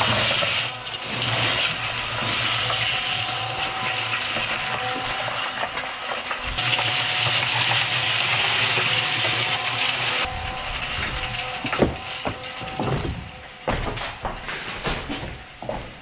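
Red portable cement mixer running with a steady motor hum while a hose nozzle sprays water into its drum, the spray hiss strongest in the middle and stopping about ten seconds in. After that come scattered knocks and scuffs.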